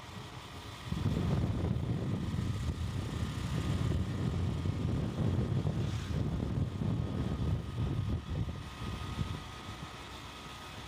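Wind buffeting the microphone of a phone held on a moving motorcycle: a heavy low rumble that comes in suddenly about a second in and dies away near the end, over the steady noise of the ride.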